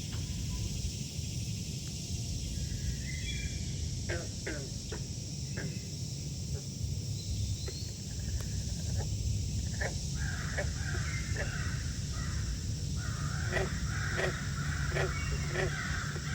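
Frogs calling: scattered short clicking croaks, joined about ten seconds in by a growing chorus of higher, rapid calls that grows denser near the end, over a steady low rumble.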